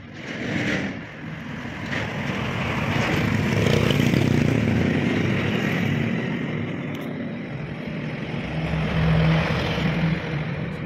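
A motor vehicle passing close by on the road, its engine and tyre noise swelling over the first few seconds, easing off, then swelling again briefly near the end before fading.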